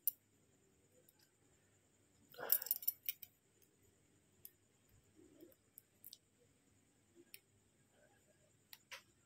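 Metal tweezers handling a Bluetooth earbud's small speaker driver in its plastic housing: scattered faint clicks, with a short burst of clicking and scraping about two and a half seconds in.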